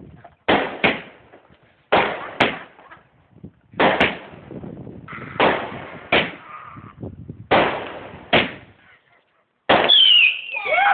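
Fireworks going off: sharp bangs mostly in pairs, a pair about every one and a half to two seconds, each bang trailing off briefly. About a second before the end, a loud, steady shrieking whistle with falling pitch starts.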